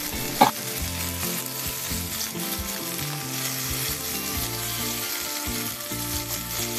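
Chicken leg pieces sizzling steadily in a dry wok, frying in the fat rendered from their own skin as they are turned over to brown the other side.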